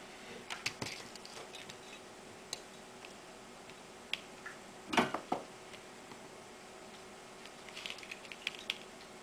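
Small clicks and taps of a circuit board and tools being handled on a tabletop, with one louder knock about five seconds in and a flurry of light clicks near the end as the soldering iron is picked up.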